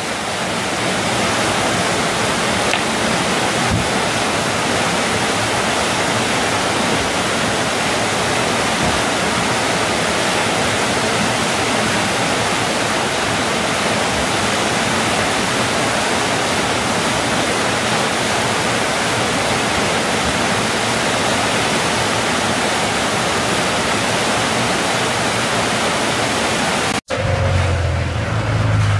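Whitewater rapids rushing steadily. Near the end the sound cuts out abruptly for an instant, and a lower rumble follows.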